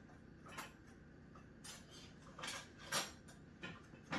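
Dishes clinking and knocking lightly in a dishwasher's bottom rack as they are handled and lifted out: about six short, scattered clinks, the loudest about three seconds in.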